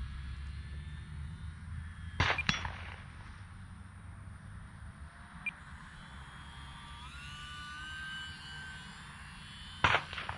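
Wind rumbling on the microphone, broken by two sharp clanks, one about two seconds in and one near the end. From about seven seconds in, the thin whine of a tiny electric RC plane's motor and propeller steps up in pitch.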